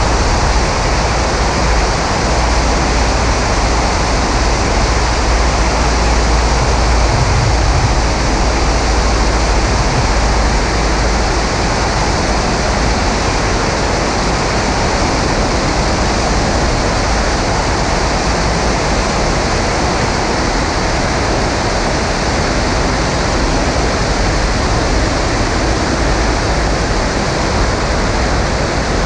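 Slipstream wind rushing over a camera mounted under the wing of a Maule M5-180C in flight: a loud, steady rushing noise with heavy low buffeting.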